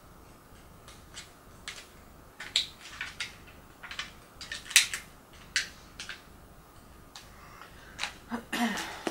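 Small plastic eyelash packets being handled: scattered light clicks and crinkles, the sharpest about five seconds in, then a longer rustle near the end.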